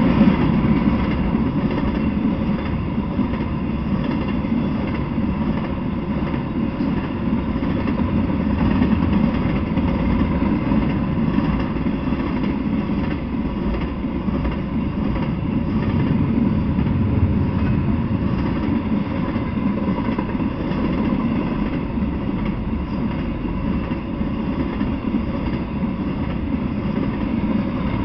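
Intermodal freight train of truck trailers on flatcars rolling steadily past: a continuous low rumble of wheels on rails, with a faint steady tone running through it.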